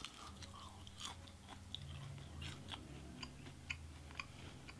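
Faint close-up chewing of a breaded chicken nugget, with many small wet mouth clicks.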